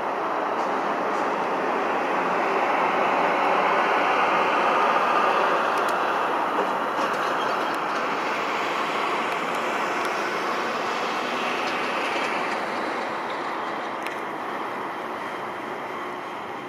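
Rushing noise of a passing vehicle, swelling to its loudest about five seconds in and then slowly fading.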